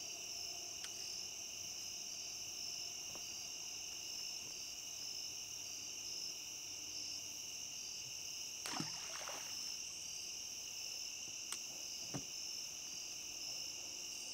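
Crickets and other insects chirring steadily in a high-pitched chorus, with a few brief soft knocks, the loudest about nine seconds in and another about twelve seconds in.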